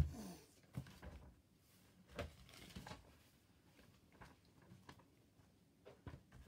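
Quiet small room with a few faint, scattered clicks and a brief soft rustle.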